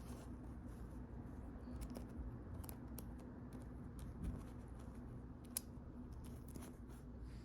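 Irregular small plastic clicks and snaps of a 3D-printed mini fidget cube being fiddled with in the hand, over a faint steady low hum.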